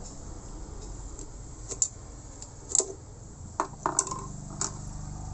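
Small metal clinks and taps as a bicycle wheel hub is taken apart by hand, a handful of separate sharp clicks a second or so apart. A low steady hum comes in near the end.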